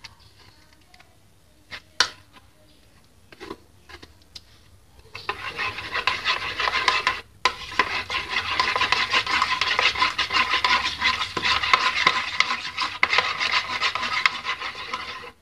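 A metal spoon stirring and scraping around a ceramic bowl, mixing poppy seed paste into beaten eggs. At first there are only a few light taps. About five seconds in, brisk continuous scraping starts, breaks off briefly once, and stops abruptly just before the end.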